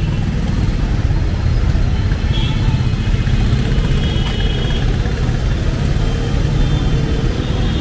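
Steady road traffic: a continuous low rumble of car engines and tyres on a busy main road, with a few faint high tones over it.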